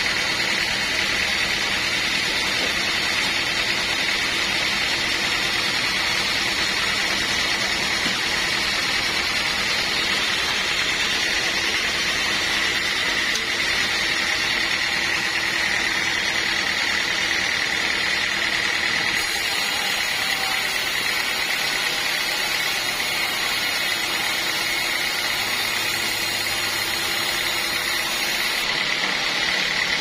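Band sawmill running, its blade cutting through a teak log: a steady machine noise with a steady high whine over it.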